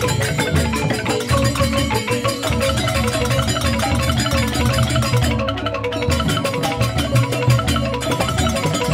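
Balinese joged bumbung gamelan playing: bamboo xylophones struck in a fast, dense stream of notes over steady low tones and drums. The high shimmer drops out briefly about five and a half seconds in.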